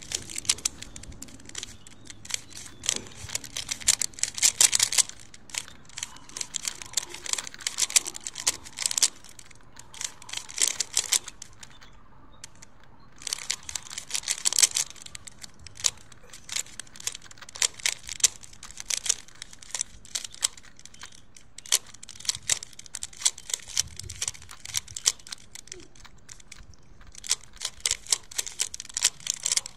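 A 3x3 Rubik's cube being turned quickly by hand during a solve: rapid runs of plastic clicking and clacking as the layers snap round, in bursts of a few seconds with short pauses between them.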